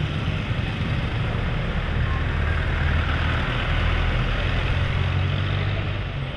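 Road traffic: a motor vehicle engine running close by with a steady low hum and road noise.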